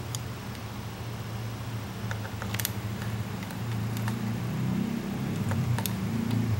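Koden TA-1000 step-down transformer humming steadily with mains hum while energised, the hum growing louder after about the halfway point. A few sharp clicks come as multimeter probes are pushed into its outlet.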